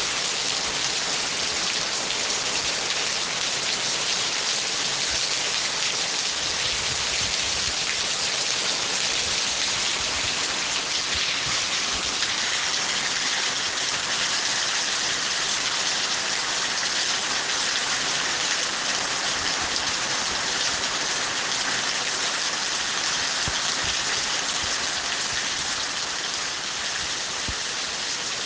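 Steady rain falling and hitting surfaces: an even, unbroken hiss.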